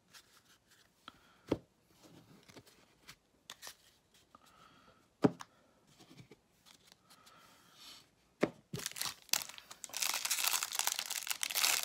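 A few sharp clicks as baseball cards are set down on stacks on a table. About nine seconds in comes a loud, continuous crinkling and tearing, like a foil card-pack wrapper being torn open and crumpled.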